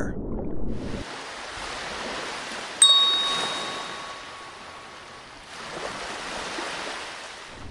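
Small waves washing up on a sandy beach, the surf rising and falling. A little under three seconds in, a single bell-like ding rings out and fades over a couple of seconds.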